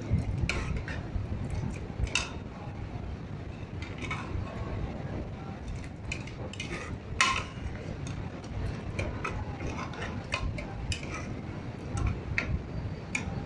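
Metal ladle stirring paneer gravy in a pressure cooker, with irregular clinks and scrapes of the ladle against the pot; the loudest clink comes about seven seconds in. A low steady rumble runs underneath.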